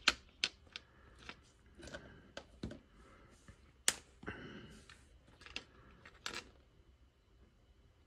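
Irregular light clicks and taps, about a dozen over six seconds, from small plastic switch parts being handled and set down on a table; the sharpest come at the very start and about four seconds in.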